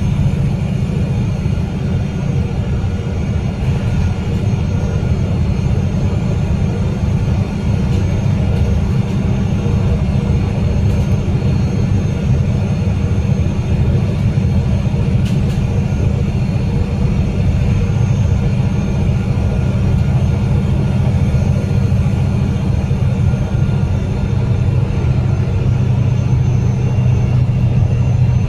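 Cummins L9 diesel engine of an Alexander Dennis Enviro500 MMC double-decker bus, heard from the rear seats inside the cabin, droning steadily at cruising speed with tyre and road noise. The pitch holds even, with no gear changes or revving.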